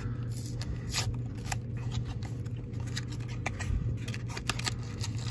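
Fingers prying open the glued end flap of a small cardboard toy-car box: a run of small, irregular cardboard clicks and scratches.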